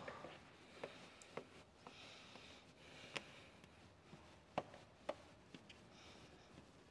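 Plastic squeegee being stroked over wet paint protection film on a painted steel bumper: faint rubbing and scraping with a few scattered sharp clicks.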